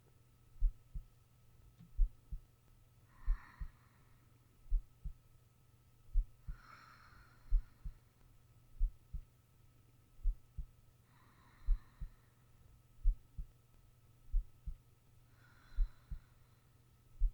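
A sleeping person's heartbeat: slow lub-dub pairs, a strong thump then a softer one, a little more than a second apart. Slow breaths come about every four seconds, over a faint steady hum.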